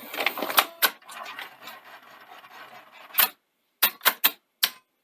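Sony SL-C6 Betamax deck's mechanism working: a rustling mechanical whirr with clicks, dying down to a faint steady whirr. A loud click comes a little past halfway, then four quick sharp clicks near the end.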